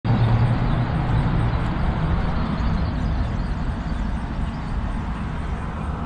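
1987 Carrier Round One 2.5-ton heat pump outdoor unit running: a steady low hum from its Tecumseh reciprocating compressor under the even rush of air from the condenser fan.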